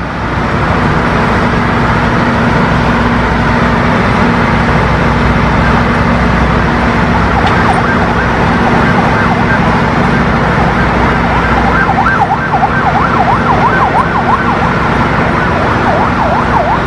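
Steady loud running of a track-laying machine's engine, with a held low hum. From about seven seconds in, a high wavering tone that sweeps quickly up and down joins it, like a warning siren.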